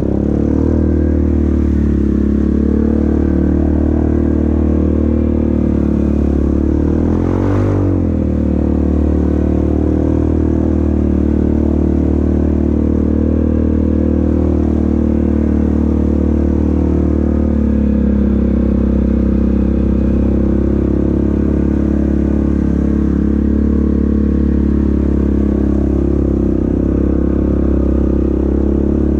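Yamaha Grizzly ATV engine running steadily at low speed while wading up a shallow creek. It briefly revs up and back down about seven seconds in.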